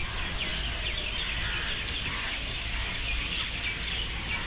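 A crowd of small birds chirping in the trees, a dense overlapping mix of short, high chirps, over a low steady rumble.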